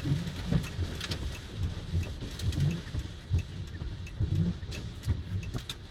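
Car cabin noise while stopped in traffic in the rain: an uneven low rumble with scattered sharp taps on the car.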